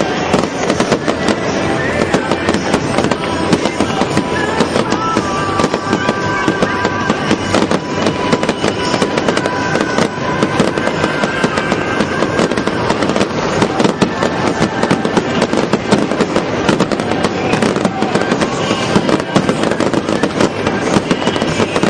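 Fireworks display at its height: a dense, continuous barrage of bangs and crackling from many shells bursting at once, with no break.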